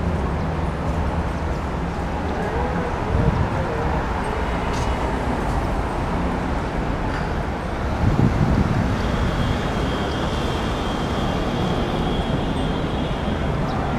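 Steady city road traffic noise, with a car passing close by on the road a little past the middle.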